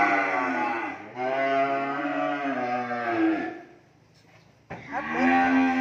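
Cattle mooing: a call tails off about a second in, then a long drawn-out moo of over two seconds follows. After a short pause, another moo begins near the end.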